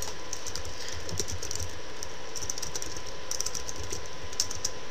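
Typing on a computer keyboard: irregular runs of quick key clicks, over a steady background hiss.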